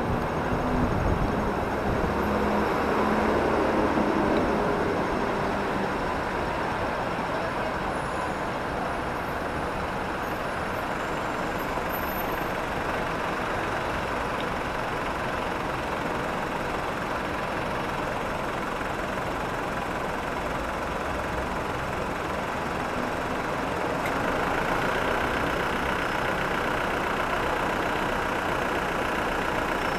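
City street traffic at a stop: vehicle engines idling and running in a steady din, with a low engine hum close by in the first few seconds. The traffic grows a little louder near the end.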